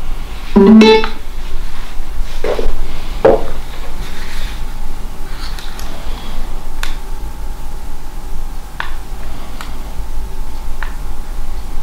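Clicks, taps and light knocks of hands fumbling with a small handheld spirit box, looking for its power switch. A faint steady tone sits underneath from about three seconds in.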